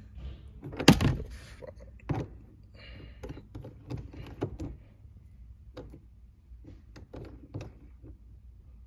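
Irregular clicks and knocks as a shift knob is screwed back onto a manual gear lever, with a loud thump about a second in.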